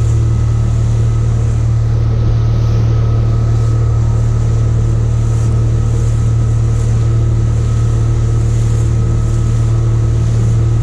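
Motorboat engine running steadily with an even, unchanging hum.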